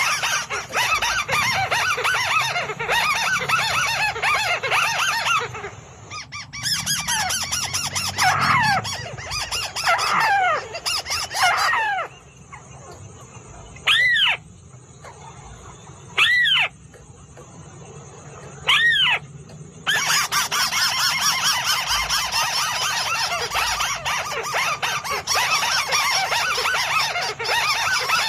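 White-browed crake calling: fast, harsh chattering, then a few falling squeals, three single loud calls about two and a half seconds apart, and the dense chattering again.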